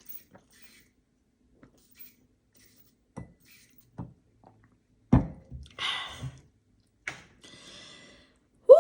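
Table-top handling sounds: a few light clicks, then a solid thunk about five seconds in. Brief rustling follows, and a short voiced sigh comes right at the end.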